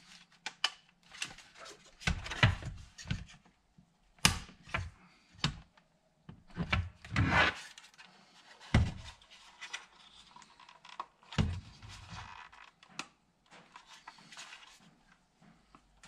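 Hard plastic housing of a Totally Integrated Power Module being handled and pressed back together: scattered clicks and knocks with rubbing in between, a few of the knocks sharper than the rest.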